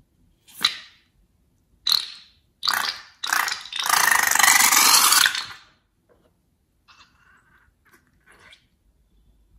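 Liquid slime mix squirting and sputtering out of a balloon's cut neck into a glass bowl: a few short spurts, then a steady rush of about two seconds as the balloon empties. Faint rustling of the emptied rubber balloon follows.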